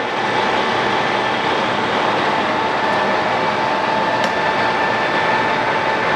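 ACER Dynamic 29 x 60G engine lathe running under power, its carriage power-driven along the bed: a steady mechanical whir with a high whine from the gearing that grows clearer after a second or so.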